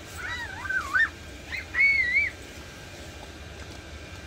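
Whistling in two short phrases, about a second each, the notes sliding up and down in a wavy line, then stopping about two seconds in; a steady low hum runs underneath.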